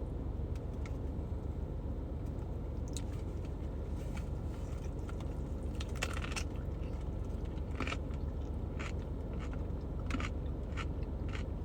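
Close biting and chewing of a pickle sandwich, a turkey sandwich wrapped in a whole pickle instead of bread, with lettuce. Short crisp crunches and mouth clicks come every second or so over a steady low rumble from the car.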